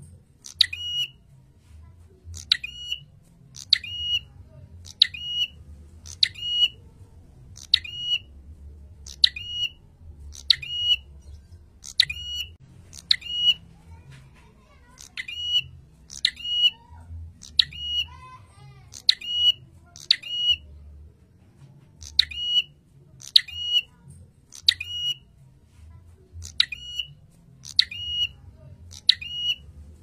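A caged prenjak, a small rufous-headed grey warbler, calling loudly and over and over: each call is a sharp note dropping quickly into a shrill ringing note, about one to two calls a second, with a short pause past the middle.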